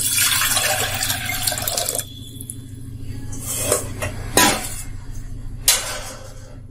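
Water poured from a stainless-steel bowl into a steel pot, splashing for about two seconds, then three short sharp sounds as the pouring ends.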